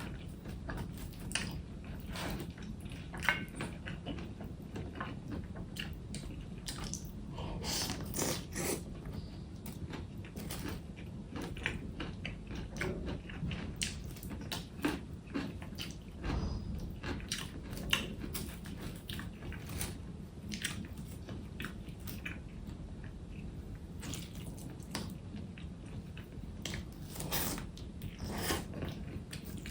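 A person chewing and biting food close to the microphone: many short, irregular smacks and crunches over a steady low hum.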